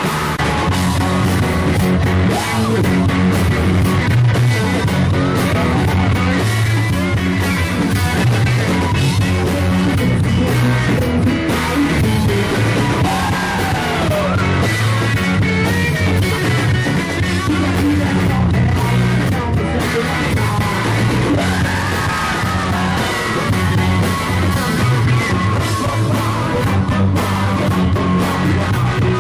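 A rock band playing live: electric guitars, bass guitar and drums, with a singer singing over them.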